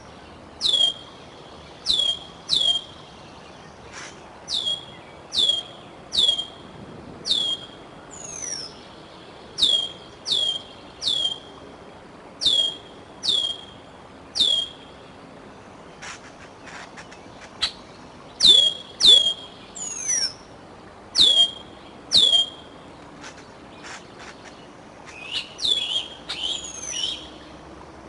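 A bird's high, clear calls, each sweeping sharply down and levelling off, repeated about once a second, often in twos and threes. A few faint ticks fall about halfway through.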